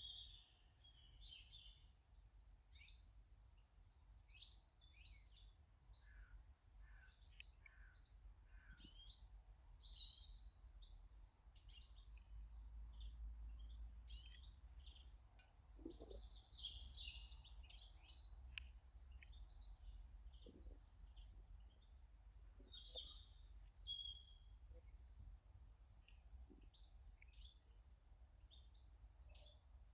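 Garden birds chirping and calling: many short, varied chirps, often overlapping, over a faint low background rumble.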